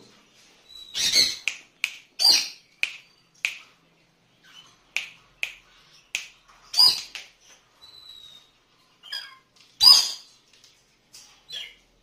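Moluccan cockatoo giving a string of short, harsh squawks and chatter, about a dozen in all, with louder calls near the start, in the middle and near the end.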